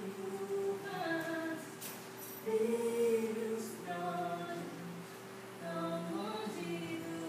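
A woman singing a slow melody in held phrases of a second or so each, over a steady sustained tone.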